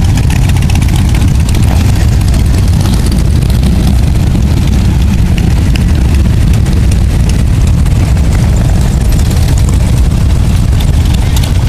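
A procession of motorcycles, many of them V-twin cruisers and touring bikes, riding past at low speed: a loud, continuous low rumble of many engines together.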